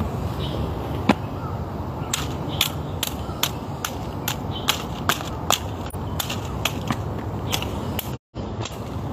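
A hiker walking on a rough trail: irregular sharp clicks and snaps of the steps, about two or three a second, over a steady low rumble. The sound cuts out briefly about eight seconds in.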